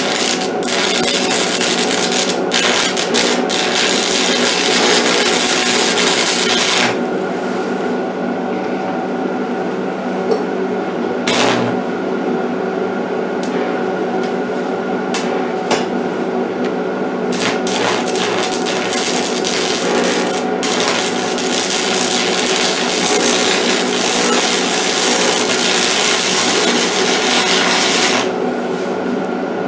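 Stick (arc) welder arc crackling and hissing as a coated steel electrode burns a bead, with the welder turned up. The arc runs for about seven seconds, stops, gives a few short bursts, then burns steadily again for about seven seconds before cutting off near the end, over a steady hum.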